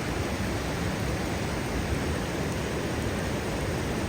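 Presque Isle River waterfall rushing: a steady, even roar of falling water, powerful enough to throw up mist.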